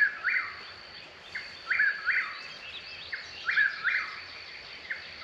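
A bird calling over and over in short, mostly paired notes, one pair about every two seconds, a call it has kept up for an hour.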